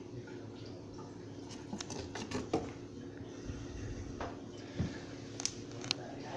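Scattered light taps and scrapes on a cardboard box as it is handled with a cat inside, a few sharper clicks near the end, over a steady low hum.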